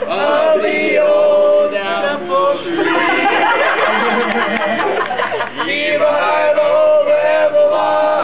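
A group of teenage boys singing a cappella in close harmony, drawing out long held chords near the start and again near the end, with a busier, more tangled stretch of voices in the middle.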